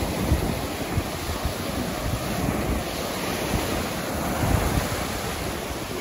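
Atlantic Ocean surf breaking and foamy wash rushing up and over the sand in a steady hiss, with wind buffeting the microphone in irregular low rumbles.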